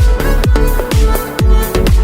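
Electronic dance music with a steady kick-drum beat, about two beats a second, under sustained synth notes.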